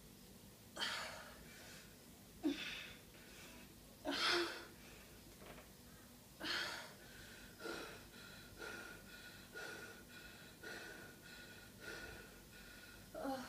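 A woman breathing hard and gasping from exertion, out of breath. Several loud gasping breaths come in the first half, then shorter, evenly spaced breaths about once a second.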